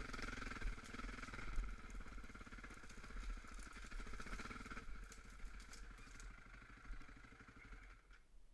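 Off-road vehicle engine running with rattling clicks, getting quieter and stopping abruptly near the end.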